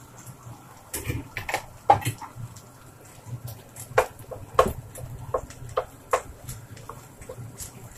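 Wooden spatula scraping and knocking against a nonstick frying pan while stirring minced pork sautéing with garlic, onion and ginger: irregular clicks and taps, the loudest about two seconds in and again past four and a half seconds.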